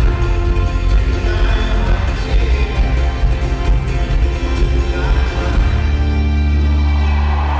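Live folk-rock band with upright double bass and keyboard playing through an arena PA, heard from the audience. About two-thirds of the way in the rhythm drops away and the band holds a long sustained chord over a deep bass note.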